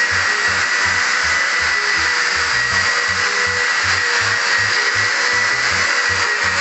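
Background music with a steady beat over the steady whine and hiss of a long-handled plaster sander with a dust-collection bag, running as it sands a plaster wall.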